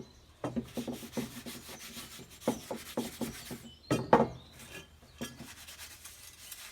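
Cast-iron sandwich iron being laid into the campfire: a run of irregular knocks and scrapes against wood, the heaviest about four seconds in.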